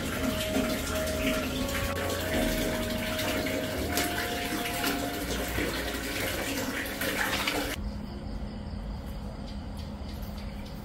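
Tap water pouring and splashing into a plastic basin as hands wash in it. The water sound stops suddenly about three-quarters of the way through, leaving a low steady hum.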